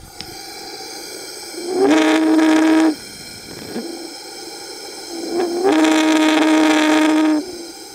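Propane-air slot burner of an atomic absorption spectrometer with its airflow turned up too high, so the flame oscillates. The steady hiss of the burning gas breaks twice into a loud, steady humming tone with many overtones: first for about a second, then for nearly two seconds near the end.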